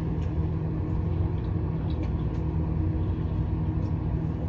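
Microwave oven running with a steady low hum, heating leftover food.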